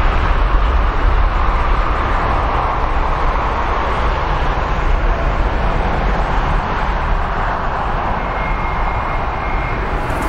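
Four turbofan engines of a Boeing 747-8 (GEnx) running at high thrust as the jet departs, a steady deep rumble with a broad rushing noise that slowly fades as it moves away.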